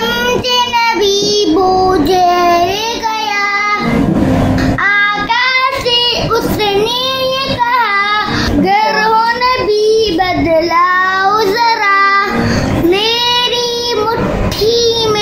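A young boy singing a naat, an Urdu devotional song, solo, in long gliding phrases with brief pauses between them.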